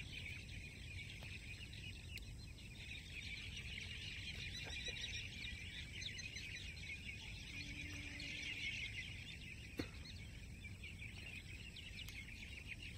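Faint, steady chorus of high-pitched chirping from small creatures in the dark, with a single soft click about ten seconds in.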